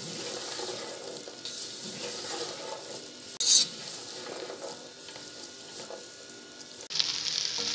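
Chopped okra frying in hot oil in a wok, sizzling steadily as it is stirred with a spatula. There is a short, louder burst about halfway through, and the sizzle turns suddenly louder near the end.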